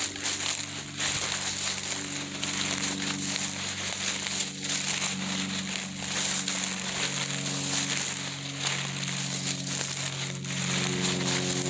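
Footsteps crunching and rustling through dry leaf litter and brush on a woodland trail, with irregular scuffs and crackles. Faint held low notes sit underneath, shifting pitch every few seconds.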